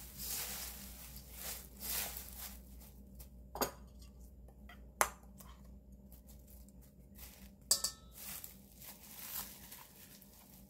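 Kitchen prep sounds: rustling and crunching of food being handled in a bowl for the first few seconds, then a few separate sharp clinks of a utensil against a dish, one with a brief ring about three quarters of the way through.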